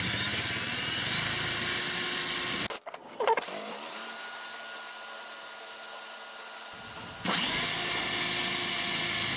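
Electric drill with an 11/64-inch bit running, boring up through an aluminum shield into a car's frame rail. It cuts out briefly about three seconds in, runs quieter for a few seconds, then comes back loud near the end.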